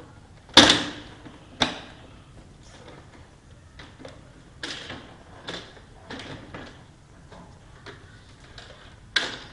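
Plastic casing of an Epson L200 printer being pried and worked loose by hand: sharp plastic snaps and clacks, the loudest about half a second in and another a second later, then a few smaller knocks and one more sharp snap near the end.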